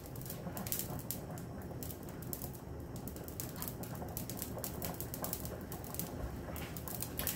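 Faint, irregular clicks and light crackles over a low steady background.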